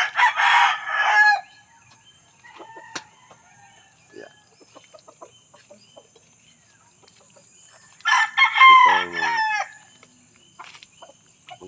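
Gamecocks crowing twice, once right at the start and again about eight seconds in, each crow lasting under two seconds, the second ending with a falling drawl. A faint steady high whine runs underneath.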